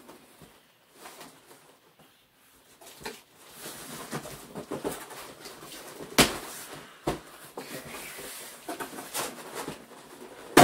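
A cardboard shipping box being opened and handled by hand: irregular scraping and rustling of cardboard, with scattered sharp knocks, the loudest about six seconds in and another near the end.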